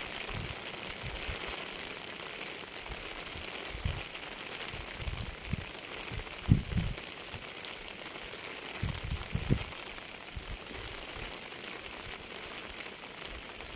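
Steady rain hiss with scattered low thuds, the strongest about six and a half seconds in and a cluster around nine seconds.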